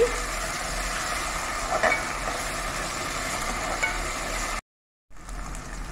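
Sliced onions, green chillies and ginger-garlic paste sizzling steadily in hot oil and ghee in a pressure cooker, stirred with a spatula. The spatula scrapes the pan a couple of times. The frying is at the stage of cooking off the paste's raw smell. The sound cuts out for about half a second near the end.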